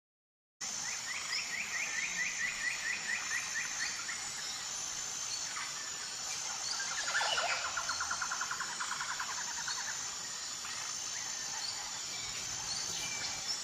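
Forest ambience of birds and insects: a steady high insect drone with birds calling over it. After a brief silence, a bird repeats a short chirp about three times a second for several seconds. Midway, a faster trill follows.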